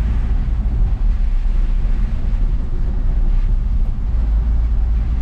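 Steady low rumble of a moving angkot minibus heard from inside its cabin: engine and road noise.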